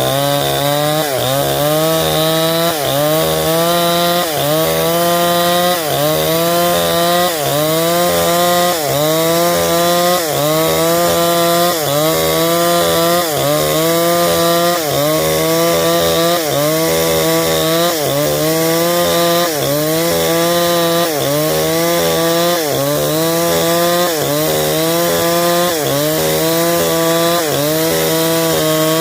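Stihl 070 two-stroke chainsaw running at full throttle, ripping a log lengthwise. Its pitch dips under load and recovers in a steady rhythm about every one and a half seconds.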